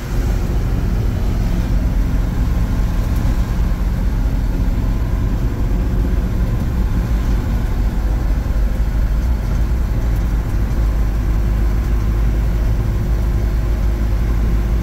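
1969 Chevrolet C50 fire truck's engine running steadily while the truck is driven along a dirt road, heard from inside the cab together with road noise.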